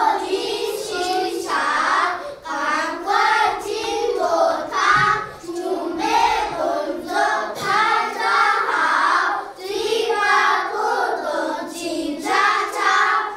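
A group of young children singing a Chinese song together in unison, unaccompanied.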